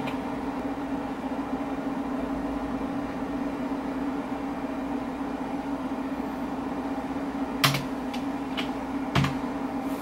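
Old desktop computer humming steadily, its cooling fans running while it boots. Two sharp key clicks come near the end.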